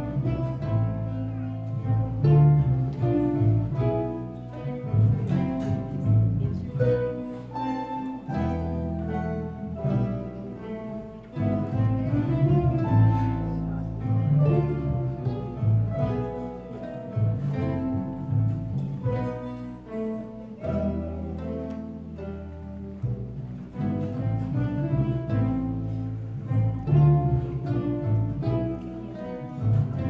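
Mandolin orchestra, mandolins and related plucked strings over a double bass, playing a carol, with deep held bass notes beneath the plucked melody.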